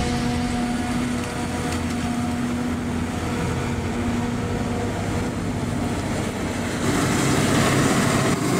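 Farm machinery engine running with a steady drone; about seven seconds in, a louder, rougher engine noise takes over.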